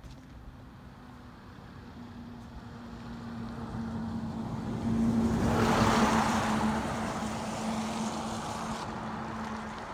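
A motor vehicle approaching and passing by: a steady engine hum with a rushing noise that grows louder, is loudest about six seconds in, then fades.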